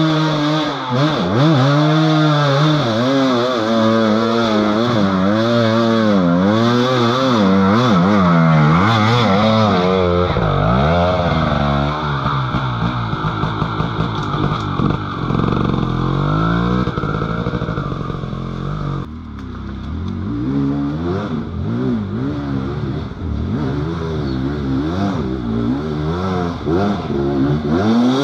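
Off-road motorcycle engine revving up and down over and over, the pitch swinging every second or so, with a short dip in level about two-thirds of the way through.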